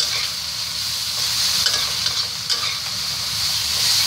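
Pork and green vegetable stems stir-frying in a hot wok, sizzling steadily, while a metal spatula tosses them and knocks against the pan a few times.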